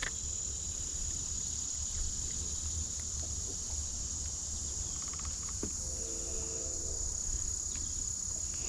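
A steady, high-pitched chorus of insects buzzing without a break, over a low, even rumble.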